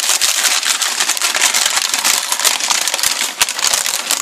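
Brown paper wrapping being handled and pulled open: dense, continuous crinkling and rustling with many small crackles.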